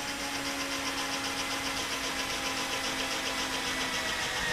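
Cordless drill running steadily with a 3.2 mm bit, drilling through a metal tube upright and the wing rib: an even motor hum with a high whine.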